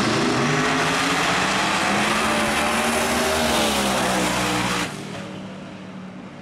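Two no-prep drag race cars launching off the line at full throttle, engine pitch rising and falling. The loud engine sound cuts off abruptly a little over halfway through, leaving a fainter, steady engine drone.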